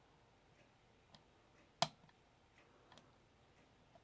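Sparse sharp clicks of a hook pick working the pin stack of an SKS 5-pin lock under tension, the loudest a little under two seconds in as the binding pin sets.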